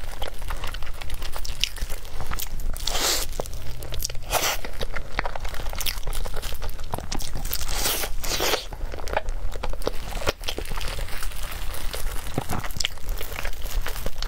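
Close-miked eating: biting into and chewing a soft purple mochi-style cake. A stream of sharp, sticky mouth clicks, with several louder bites.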